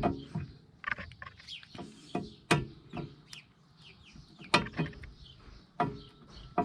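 Irregular sharp metallic knocks and clinks, about eight of them, some ringing briefly: tools and steel parts being handled during front wheel hub work. Small birds chirp faintly in the background.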